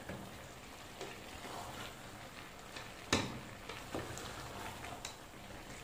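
Wooden spoon stirring and scraping a chicken, bean and potato curry in an aluminium pot, with a handful of sharp knocks against the pot, the loudest about three seconds in. Under it runs a steady low hiss of the curry frying on high heat.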